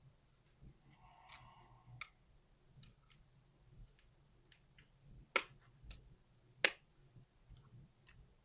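Small metal lock parts and tools clicking and tapping while a lock cylinder is disassembled, with a brief scraping rattle about a second in. Two loud sharp clicks stand out, one about five and a half seconds in and one near the end.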